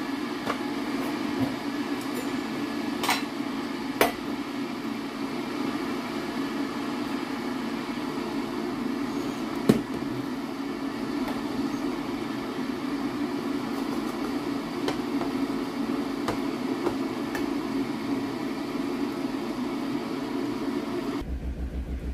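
Electric kettle heating up with a steady rumbling hiss, with a few sharp clicks and knocks. Near the end the sound changes abruptly to a low, rapidly pulsing hum.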